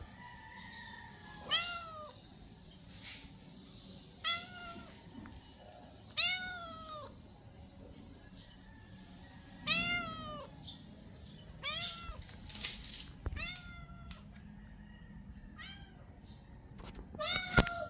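Stray tabby cat meowing repeatedly for food: about seven drawn-out meows a couple of seconds apart, each rising then falling in pitch. These are the begging calls of a hungry cat.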